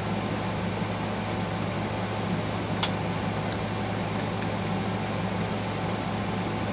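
Steady low mechanical hum with an even hiss, with one sharp click a little under three seconds in and a couple of faint ticks after it.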